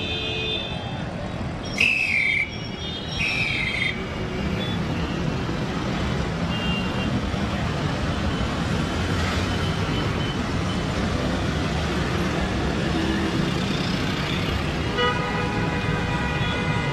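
Busy road traffic with engines running and vehicle horns honking: two short, high, falling toots about two and three seconds in, and a long horn near the end.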